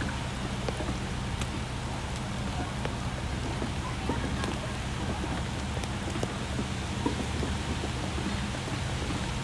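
Rain falling steadily in a downpour, with scattered drops ticking sharply on a nearby surface.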